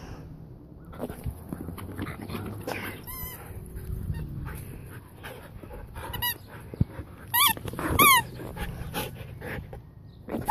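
Huskies whining in four short, high-pitched, wavering cries, the loudest two about seven and eight seconds in.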